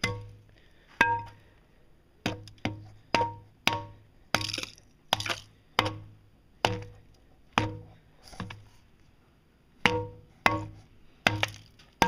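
A hand tool repeatedly striking and chipping a patch of ice, in sharp, irregular blows about one to two a second, each with a short ring.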